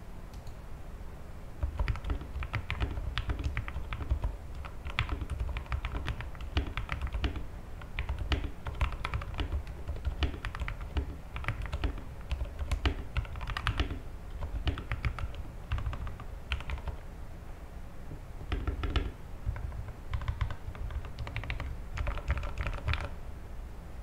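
Typing on a Leopold FC660M mechanical keyboard fitted with Cherry MX Silent Red switches on the letter keys: a fast, steady run of damped, muted keystrokes. It starts about two seconds in, pauses briefly twice and stops just before the end.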